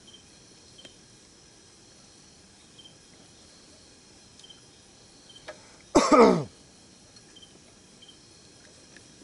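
Faint insects chirping steadily in the night background. About six seconds in, a person makes one short, loud vocal sound that falls steeply in pitch.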